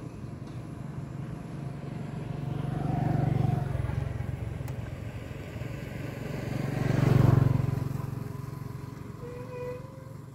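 Two motor vehicles pass one after the other, each engine swelling and then fading away. The first passes about three seconds in, and the second, louder one about seven seconds in.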